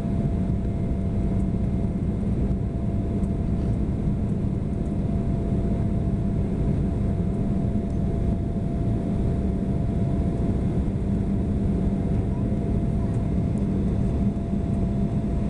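Steady cabin noise of an Embraer 175 climbing after takeoff: its GE CF34 turbofan engines and the rush of air over the fuselage, a deep even drone with a thin steady tone above it.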